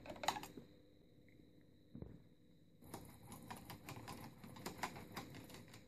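Faint, quick small clicks and scraping of a screwdriver turning a long screw out of an oxygen concentrator's aluminium sieve-bed end cap. A few single clicks come first, and the run of rapid ticking starts about three seconds in.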